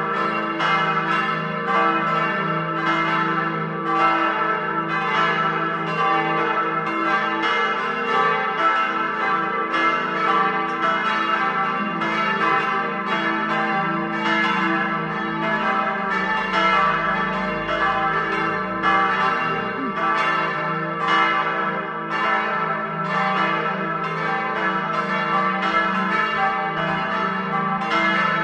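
Full peal of four church bells tuned e' g' a' c'', all ringing together. Their strikes come somewhat more than once a second and overlap, over a sustained layered ringing.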